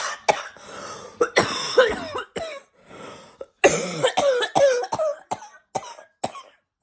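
Coughing: a dozen or so short coughs in quick succession, in several fits, some of them with the voice in them.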